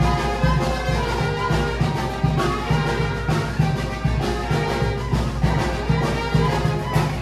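Brass band dance music with a steady beat, played for a devil-mask dance.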